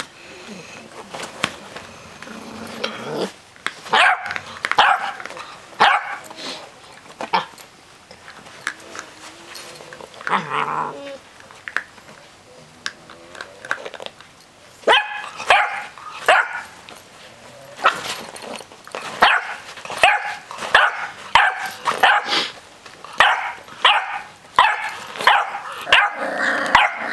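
Puppies barking and yipping in quick, short calls as they squabble over a milk bone: a spell of barks a few seconds in, then a long run of rapid barks through the second half.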